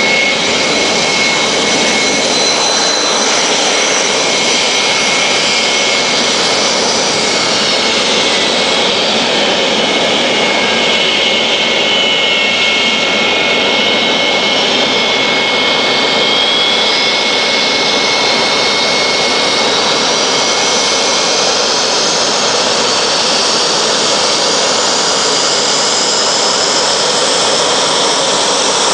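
Dassault Mirage jet's SNECMA Atar turbojet running at ground idle while taxiing: a steady loud roar with a high whine that drops in pitch about ten seconds in, then slowly rises again.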